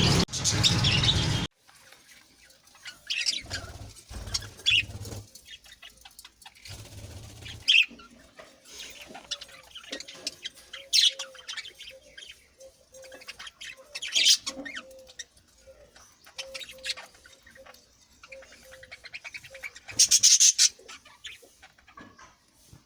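Caged pet birds chirping in a shop: scattered short, high chirps, a faint low note repeating through the middle, and a burst of rapid chirping about twenty seconds in.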